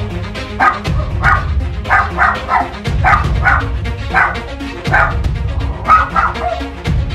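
Small Maltipoo dog barking repeatedly in short, sharp barks, about two a second, over background music.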